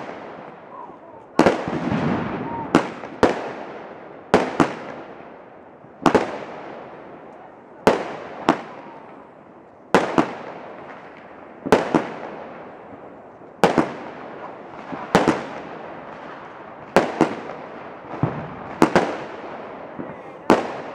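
Aerial fireworks going off: sharp bangs every second or two, often in close pairs, each trailing away with a fading echo.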